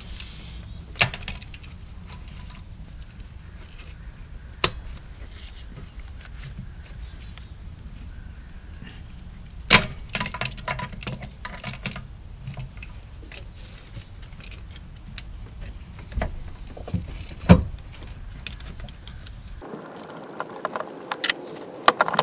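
Scattered metallic clinks and knocks of hand tools on the engine's metal accessory bracket as a stud is worked out with locking pliers (vice grips). The sharpest knocks come a little under ten seconds in and again around seventeen seconds. Near the end the low background hum gives way to a steady hiss.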